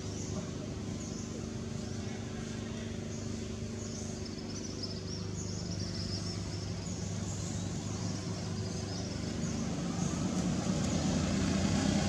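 Steady hum of a motor engine running, growing louder toward the end, with short high chirps repeating about once a second.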